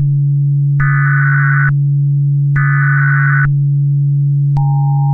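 Emergency Alert System SAME header: harsh digital data bursts about a second long, two of them after the tail of a first. About four and a half seconds in, the steady two-note EAS attention tone starts. A steady low hum runs underneath.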